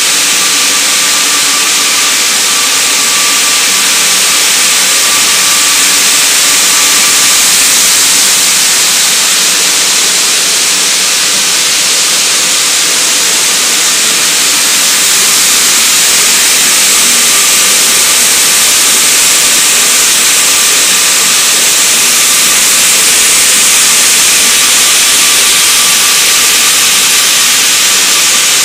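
Steady, loud machinery din of a biscuit packaging line's conveyors and packaging machines: an even hiss-like noise with a faint steady whine running through it.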